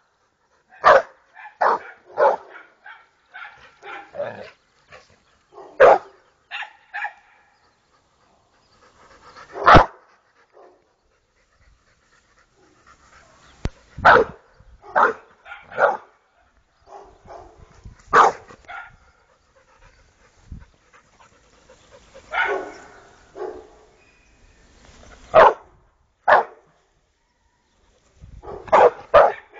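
American Staffordshire terrier barking at an unfamiliar cable spool on the lawn. The barks are sharp and come singly or in quick pairs, with irregular pauses of a second to several seconds between them.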